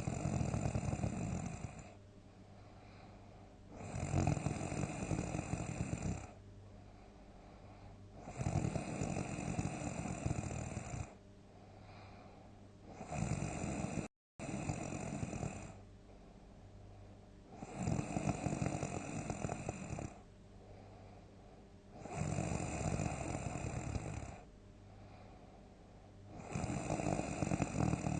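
A sleeping person snoring loudly, one long snore of about two seconds roughly every four and a half seconds, with quieter breathing between. The sound drops out for an instant about fourteen seconds in.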